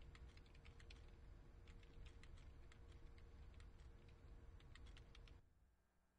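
Faint, rapid, irregular clicking over a low hum, like keys being typed. It stops suddenly about five and a half seconds in.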